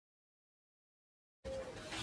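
Dead silence, then a sound cuts in abruptly near the end, with a faint steady tone.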